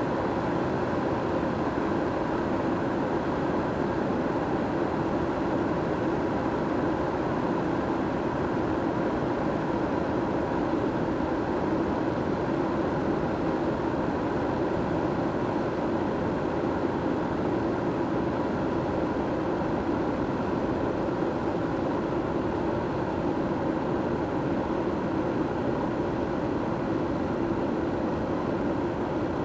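Kettle heating water: a steady, even rushing noise with no whistle.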